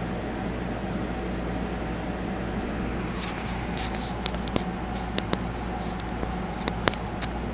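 Steady mechanical hum of reef aquarium pumps and equipment, with a scattered run of sharp clicks in the second half.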